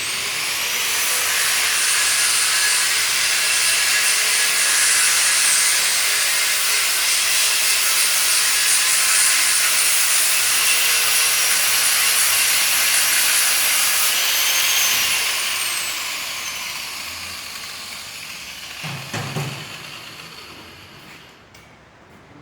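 High-speed rotary power tool running with a loud hiss and high whine, then winding down about fifteen seconds in as its pitch falls. A low knock follows near the end.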